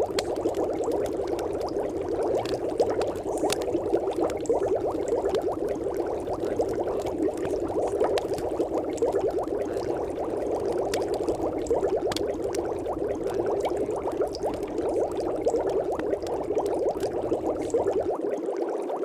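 Steady bubbling, water-like noise with a fine crackle, unchanging throughout: the masking sound of a subliminal track, meant to carry affirmations that are not heard.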